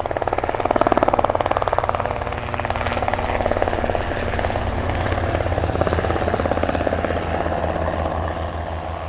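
Aircraft flying: a steady, rapid chopping drone that fades in at the start.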